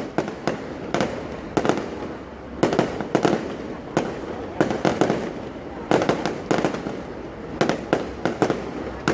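Fireworks going off: repeated sharp bangs, often two or three in quick succession, every half second to a second, over a continuous crackling hiss.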